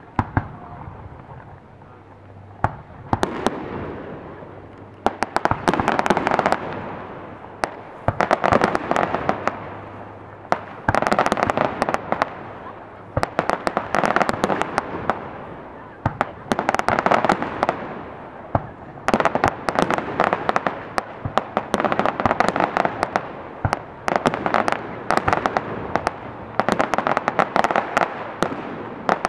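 Aerial firework shells bursting in a steady volley, one about every two and a half seconds. Each report is followed by a dense crackling that fades over a second or two.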